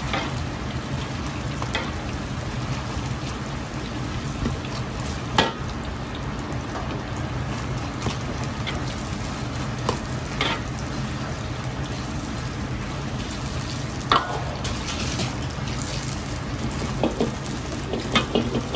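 Marinated lamb slices deep-frying in a wok of hot oil, a steady bubbling sizzle over a low steady hum. A steel ladle knocks against the iron wok a few times, more often near the end.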